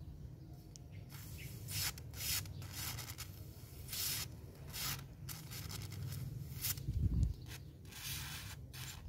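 Aerosol spray lubricant squirted in a series of short hissing bursts through its red straw onto the armature bearings of a disassembled electric wood-cutting saw. A dull knock comes about seven seconds in.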